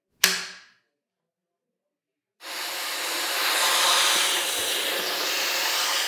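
A sharp click as the crevice tool snaps onto the wand. About two seconds later the Dyson V8 cordless vacuum starts up abruptly and runs steadily with the crevice tool, a loud rush of air.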